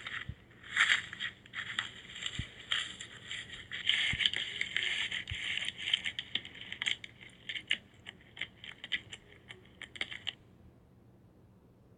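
Slime being squeezed and pressed by hand, giving quick crackly popping clicks, sometimes in dense runs and sometimes one by one. It stops abruptly about ten seconds in.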